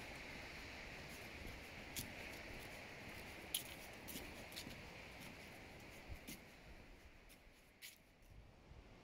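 Faint outdoor ambience: a steady soft hiss with a few scattered, irregular light clicks and taps. It fades down near the end.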